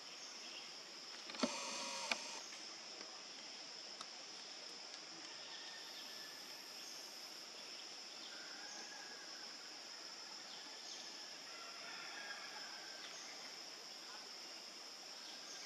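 Steady high-pitched drone of insects. About a second and a half in comes a short, louder harsh sound that starts and ends with a sharp click. A few faint chirps follow later.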